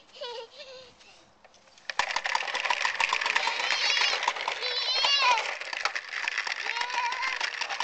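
Push-along popper toy rattling: its balls clatter rapidly inside the clear plastic dome as it is pushed along. The rattling starts suddenly about two seconds in, with a child's brief high-pitched calls over it.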